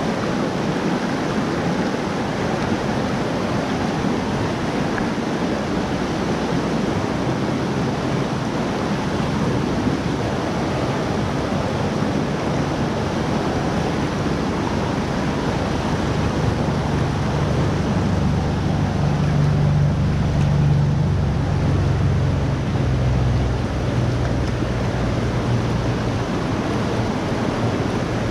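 Rushing water of a mountain river running over rocks, a steady, even noise. A low rumble swells in about the second half and eases off near the end.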